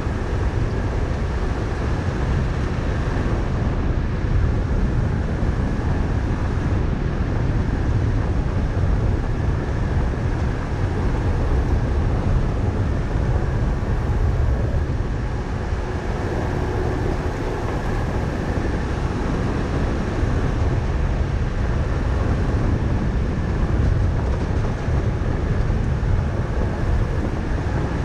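Vehicle driving steadily along a gravel road: a continuous rumble of tyres on gravel and road noise, even in level throughout.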